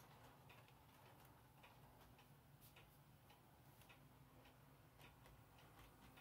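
Faint, irregular clicking of a model train's wheels running over the track, with a faint steady hum from a DCC locomotive's motor joining about two-thirds of the way through as the engine draws near.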